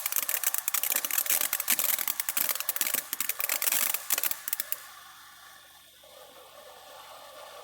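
TNT Fireworks Orange Float fountain firework spraying, a dense crackling hiss that cuts off a little under five seconds in as the fountain burns out.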